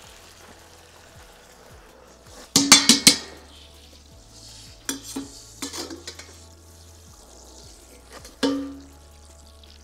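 Metal ladle stirring chicken curry in a wok, clanking and scraping against the pan in bursts over a faint sizzle: a quick run of about five strikes about two and a half seconds in, a few more around five to six seconds, and one more near the end.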